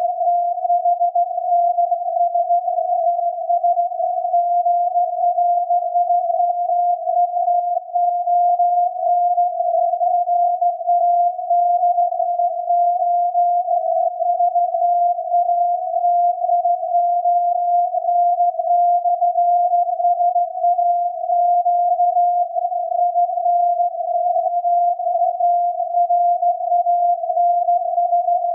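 SAQ Grimeton's 17.2 kHz VLF transmission received on a software-defined radio and demodulated to a steady tone near 700 Hz, set in a narrow band of filtered hiss. The carrier runs unbroken, with no Morse keying.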